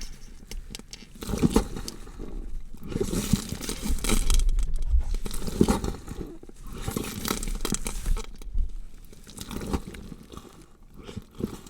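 Gore sound effect of a body being dissected: flesh tearing and crunching in irregular crackling bursts that swell and fade every second or two.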